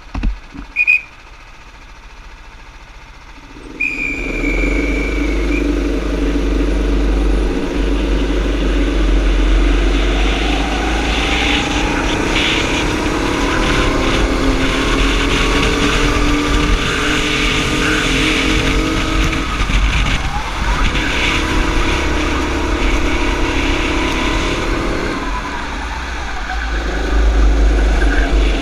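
Racing kart engine heard from on board, quiet for the first few seconds, then accelerating hard about four seconds in and revving up and down through the corners, its pitch dropping twice as it slows, with wind rumbling over the microphone.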